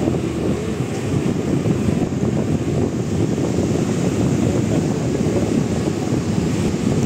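Steady low rushing noise of wind buffeting the microphone, with the rumble of a moving vehicle under it.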